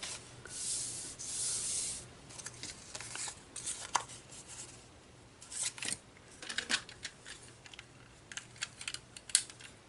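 Paper and cardstock pieces being handled on a work surface: a sliding, rubbing rustle for a second or two near the start, then scattered light rustles and taps.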